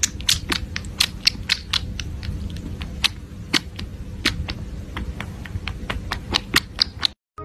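Kitten suckling milk from a feeding bottle's teat: quick wet clicking and smacking, irregular, about three or four clicks a second, over a low rumble.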